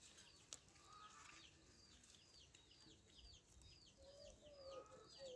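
Faint chickens: a steady run of high, falling peeps, about two or three a second, with a few low clucks near the end.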